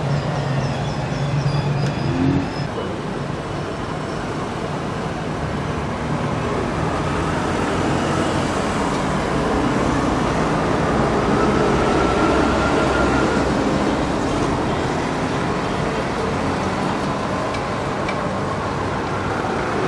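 Steady background noise of road traffic.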